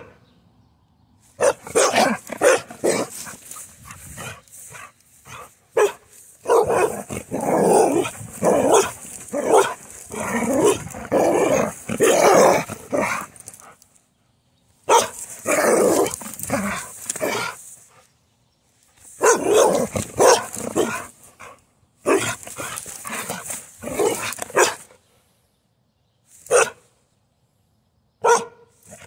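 Carolina dog barking in excited play, in bursts of rapid barks a few seconds long with short pauses between.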